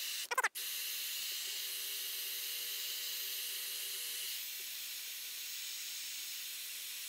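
Hilti SF 6H-A22 cordless hammer drill running with no load, its spade bit spinning in the air: a steady motor hiss with a faint whine, in footage that is sped up. It steps down slightly in level a little past halfway.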